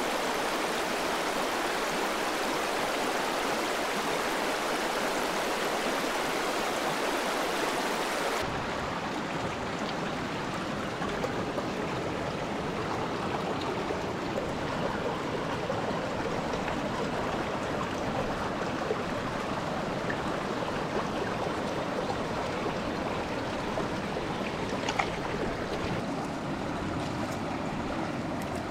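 Mountain stream rushing over rocks. About eight seconds in the rush turns duller and lower, and a few faint ticks come near the end.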